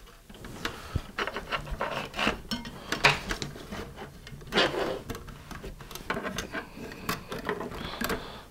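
A nylon zip tie being handled, wrapped around a plastic tank and pulled through. It makes irregular rubbing and scraping with many small clicks of plastic against plastic and the metal chassis.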